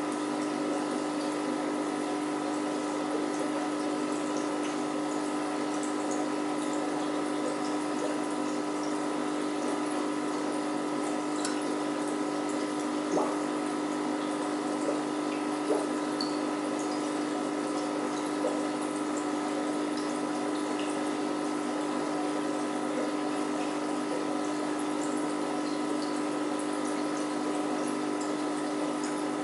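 Aquarium filter and pump running: a steady hum with water trickling and bubbling, and a couple of faint ticks midway.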